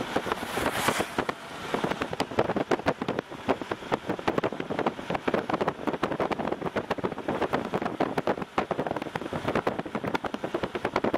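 Car driving with steady road and wind noise, crossed by a dense run of irregular sharp ticks, with a brief stronger hiss about a second in.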